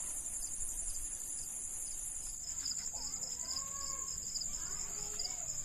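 Insects chirring steadily at a high pitch, with a pulsing chirp about three times a second beneath it; from about three seconds in, bird calls join.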